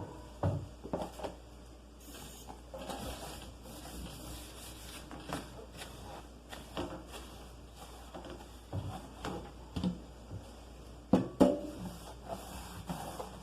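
Items being handled while a refrigerator is cleaned: scattered light knocks, clunks and rubbing of containers and shelves, with two louder knocks about eleven seconds in.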